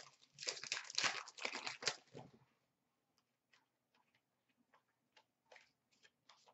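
Hockey card pack wrapper crinkling and rustling for about two seconds. Then faint, scattered clicks of the trading cards being flicked through one by one.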